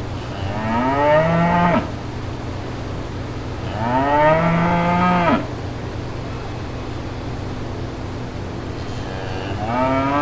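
Cow mooing three times, each moo rising in pitch at the start and lasting about one to one and a half seconds; the third begins near the end. A steady low hum runs underneath.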